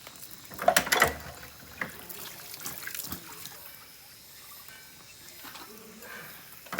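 Hand dishwashing: water trickling, with sharp clatters of bowls or dishware knocking together about a second in and again near the end.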